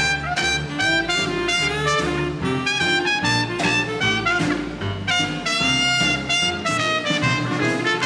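Small swing band playing an instrumental passage live, with trumpet and saxophone leading over upright bass, piano and drums, the bass stepping from note to note.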